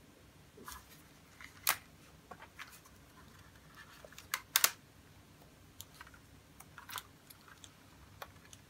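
Scattered clicks and taps from a plastic power strip being handled and turned over, the loudest a double click about halfway through.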